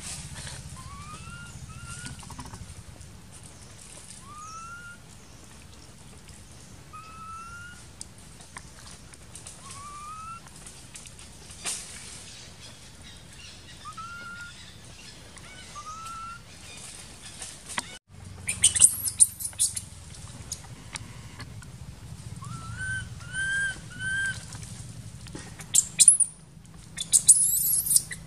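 Baby macaque crying: short rising whimper-like calls about every two seconds, then louder, shriller squeals and screams in the last third.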